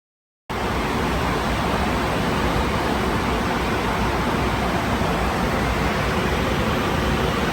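A steady, even rushing noise with no distinct events starts suddenly about half a second in, after a brief dead silence.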